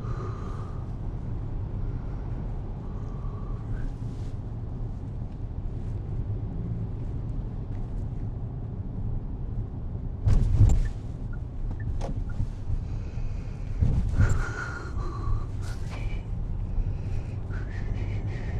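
A man with a head cold sneezing twice, loudly, about ten and fourteen seconds in, over a steady low rumble.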